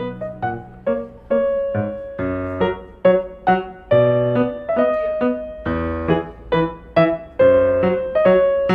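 Background piano music: notes and chords struck at a gentle pace, each left to ring and fade before the next.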